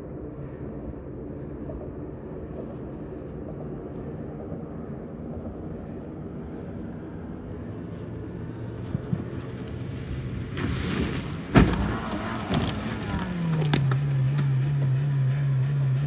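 Remote-controlled Pontiac Grand Am's engine running steadily as the car drives across a muddy field. About ten and a half seconds in comes a burst of crashing and scraping with one loud impact, as the car slides off the track into brush. After that the engine keeps running with a louder, steady, slightly wavering drone.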